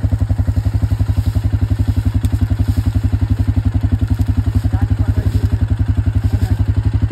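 Suzuki KingQuad ATV's single-cylinder engine idling close by: a steady, even chugging of about a dozen pulses a second.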